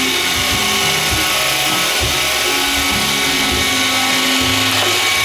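iRobot Roomba 550 robot vacuum running, its vacuum motor and brushes making a steady whir with a high whine.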